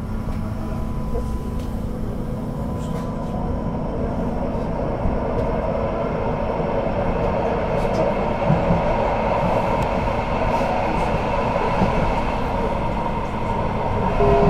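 Duewag/Kiepe B80D Stadtbahn light-rail car running, heard from inside the car: steady running noise with a faint steady whine, growing gradually louder as the car gathers speed.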